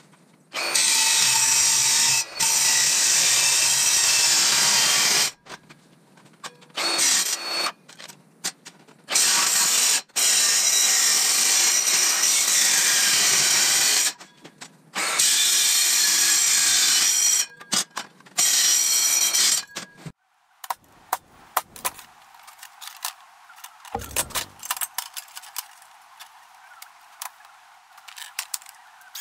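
Cordless metal-cutting circular saw cutting through steel plate in several long passes, stopping and starting, with short breaks between cuts. After about twenty seconds the saw stops, leaving only scattered clicks and clatter of handling.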